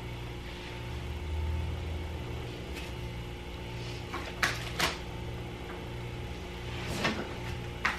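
A few brief clicks and rustles of toys and plastic packaging being handled, twice close together about four and a half seconds in and once more near the end, over a steady low hum.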